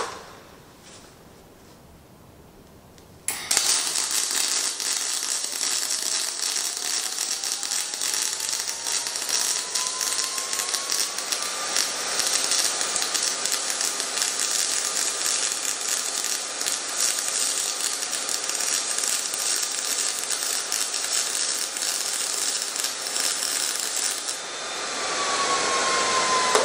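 MIG welding arc from a Spoolmate 150 spool gun running .035 aluminum wire on eighth-inch aluminum plate at 21.5 volts and 400 inches a minute. The arc strikes suddenly about three seconds in and burns as a loud, even hiss for about twenty seconds, then stops near the end. A different hiss with a falling whine follows.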